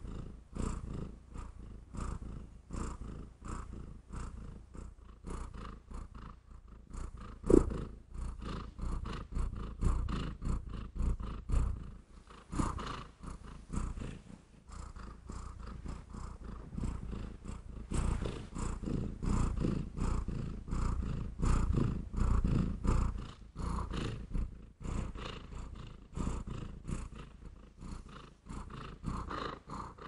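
Domestic cat purring close up, coming and going in short pulses with a louder stretch about two thirds of the way through. A single sharp click cuts in about seven and a half seconds in.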